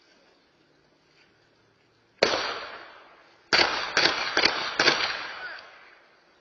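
Five gunshots picked up by a home security camera's microphone: a single shot, then after a pause of about a second, four in quick succession, each echoing and dying away.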